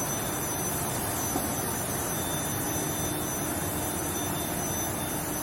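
Induction tempering furnace line for rolled steel running: a steady industrial din with a thin, high-pitched whine held throughout.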